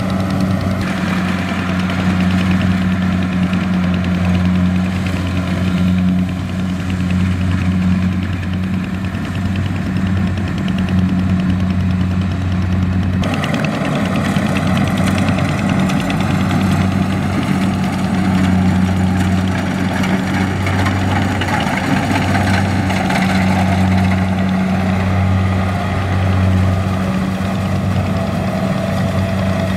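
The engine of a rice harvesting machine running steadily, with a change in its mechanical noise about 13 seconds in.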